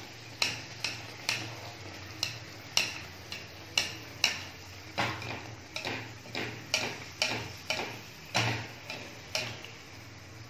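A wire skimmer clicking and tapping against a shallow frying pan, about twice a second and a little unevenly, as hot oil is splashed over a frying ragi vada to make it puff. A low steady hum runs underneath.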